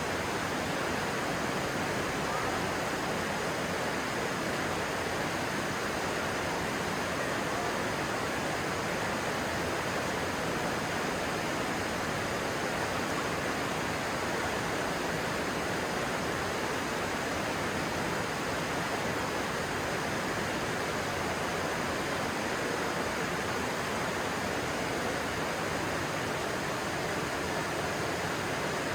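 Stream water rushing steadily, an even, unbroken wash of noise.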